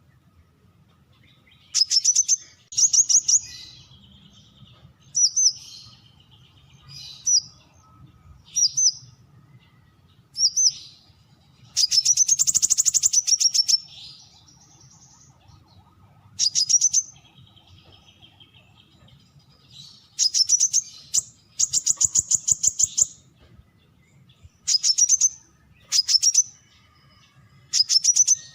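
Brown-throated sunbird calling: short bursts of rapid, high, sharp notes, repeated every second or two with brief pauses. About halfway through comes a longer twittering run lasting some two seconds.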